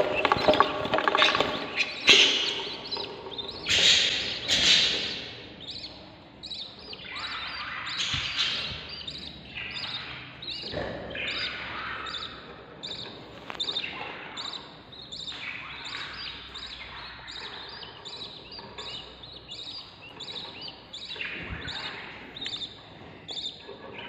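Ten-day-old budgerigar chicks giving hungry begging calls, dense and overlapping and loudest in the first few seconds while the hen moves among them, then settling into a steady run of about two calls a second. A few soft thumps are heard on the nest box floor.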